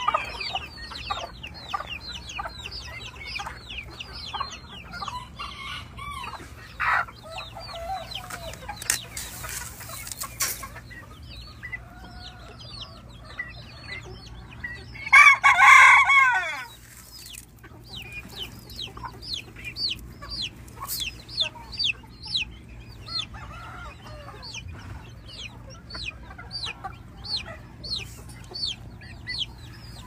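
Flock of Savala gamefowl chickens clucking, with many short high chirps running through, and a rooster crowing once about fifteen seconds in, the loudest sound. A short rush of noise comes a little before it.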